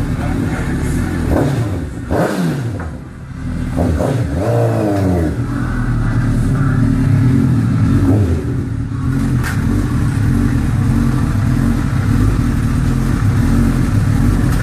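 Honda CBR sport bike's engine blipped several times, its pitch sweeping up and down, then running steadily at low revs as the bike rolls in close by.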